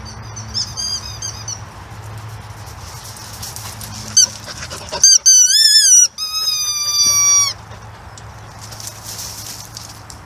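High-pitched squeaking over a low steady hum: a run of short warbling squeaks near the start, then louder wavering squeals about five seconds in, and a long steady squeal that falls slightly and cuts off about seven and a half seconds in.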